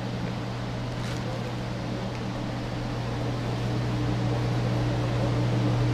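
A steady low machine hum with an even airy hiss, growing slightly louder toward the end.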